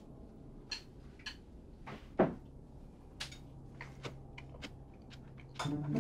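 Scattered light clicks and knocks of objects being handled, with one louder knock about two seconds in, over a faint steady hum; music comes in near the end.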